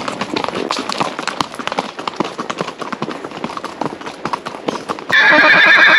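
Paso horses' hooves clip-clopping on a dirt track in a quick, even patter. Near the end a horse breaks into a loud, wavering whinny.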